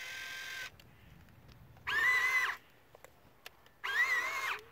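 Small electric motors of a radio-controlled tracked skid-steer loader whining as it drives. A steady whine stops under a second in, then two short bursts of higher, wavering whine follow about two seconds apart as the loader turns and moves its bucket.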